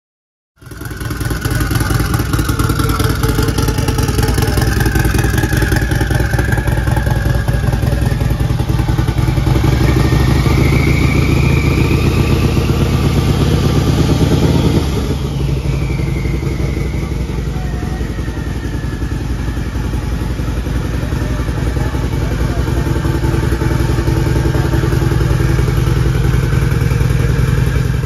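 Turbocharged Harley-Davidson V-twin motorcycle engine running. A whine rises in pitch for several seconds, then falls away about halfway through as the engine eases back slightly. It keeps running steadily after that.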